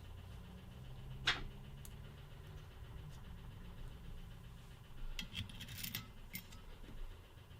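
Small clicks and knocks of parts being handled during assembly: one sharp click about a second in, then a cluster of clicks and taps around five to six seconds, over a low steady hum.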